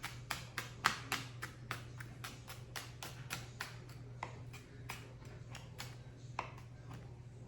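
Knife chopping elephant garlic scapes on a cutting board: a steady run of quick, sharp chops, about three or four a second.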